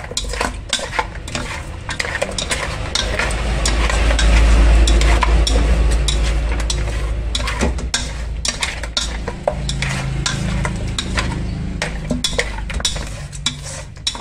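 Raw pork bones tossed in a wet marinade in an aluminium pot with wooden chopsticks and a hand: a steady run of clacks and knocks of bone and chopsticks against the pot, with wet squishing. A low rumble swells a few seconds in and is the loudest part.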